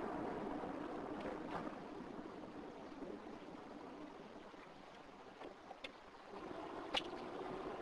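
Road and engine noise heard from inside a moving car, a steady rushing hiss. It fades as the car slows for a junction and picks up again as it pulls away, with a few sharp clicks near the end.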